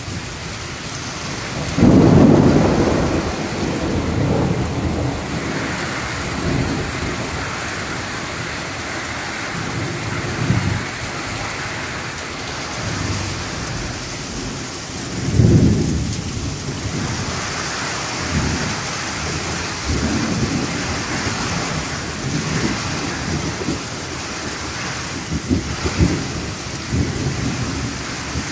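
Steady rain falling on the trees, with thunder rumbling: a loud roll about two seconds in, another about fifteen seconds in, and weaker rumbles between and near the end.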